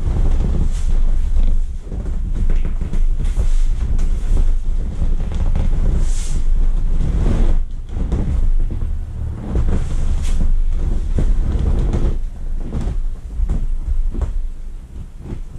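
Inflatable vinyl swim ring being handled and ridden: a run of irregular thumps and rubbing noises over a low rumble.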